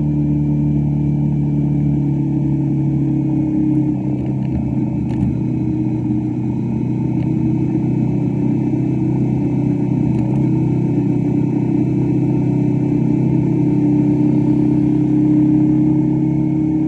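Motorcycle engine running steadily as the bike cruises along the road, heard from the rider's seat.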